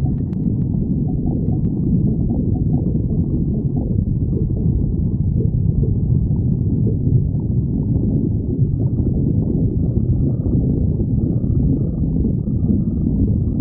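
Stomach growling: a continuous low rumble, steady in level.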